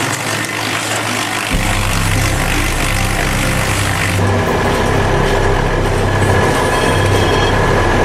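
A drum wood chipper and its engine running, with a steady rushing noise, joined by a low engine drone about a second and a half in. About four seconds in the sound switches abruptly to another machine's engine, running steadily with a high whine.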